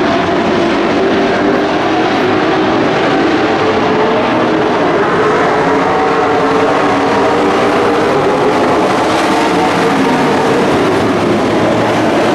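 Dirt-track stock trucks racing in a pack, several engines running hard at once, their pitches overlapping and rising and falling as they go around the oval.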